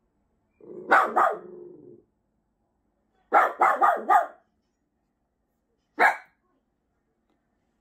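Miniature Pinscher barking in short, high yaps. It gives a low growl with two barks over it, a quick run of four barks a couple of seconds later, and one last single bark.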